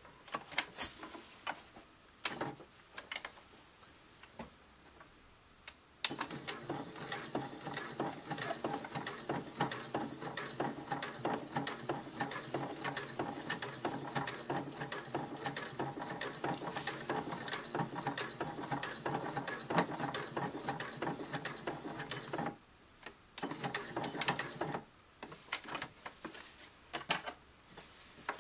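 Domestic sewing machine stitching a plastic teether onto fabric. A few scattered clicks come first; the machine then starts about six seconds in and runs steadily with a fast, even rhythm for about sixteen seconds. It stops briefly, runs again for a couple of seconds, and stops, followed by a few more clicks.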